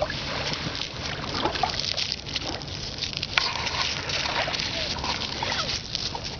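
Small lake waves washing onto a pebbly shore, with scattered crackles like pebbles crunching underfoot.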